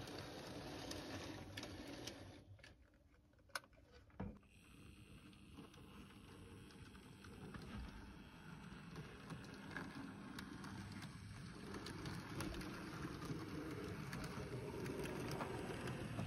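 Heljan 009 model locomotive Lyn running with its coaches on a model railway: the faint, steady whirr of its small motor and wheels on the rails. It dips quieter about three seconds in, with a couple of sharp clicks, then grows louder toward the end.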